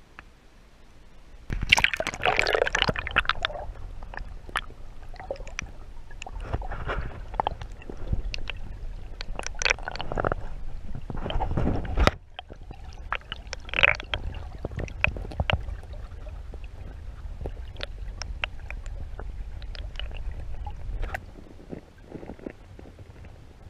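Water sloshing and gurgling close to the microphone, with a low rumble and irregular clicks and knocks. The sound starts abruptly about a second and a half in and drops away shortly before the end.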